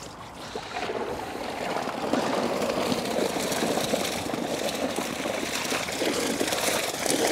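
Water pouring and splashing out of a fine-mesh keep net full of fish as it is hauled up out of a river, growing louder after about a second.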